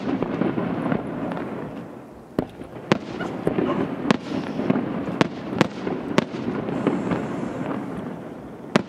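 Aerial fireworks display: a string of sharp bangs from shells bursting, about seven in nine seconds, over a continuous rumble and crackle from the display.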